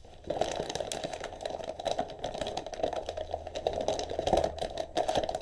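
Rapid, irregular clicking and rattling of hard plastic and metal PC parts being handled and pushed into place, over a low steady hum.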